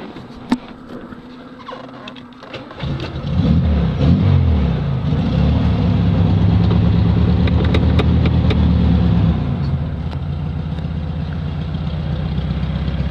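A few clicks and a sharp knock, then about three seconds in the 1971 VW Super Beetle's air-cooled 1600 flat-four with a two-barrel Weber carburetor starts and revs up. It holds a raised idle, then settles to a lower, steady idle near ten seconds in.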